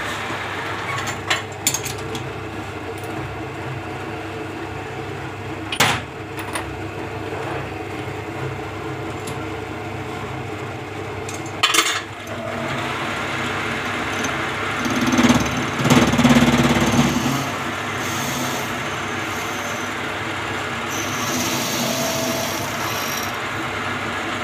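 Metal lathe running: a steady hum of motor and gearing, with a few sharp clicks about a second, six seconds and twelve seconds in, and a louder stretch with a deeper hum around the middle.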